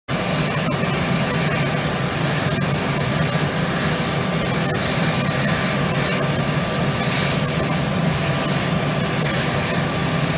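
Aircraft turbine engines running steadily on an airfield apron: a continuous loud rush with a thin high whine.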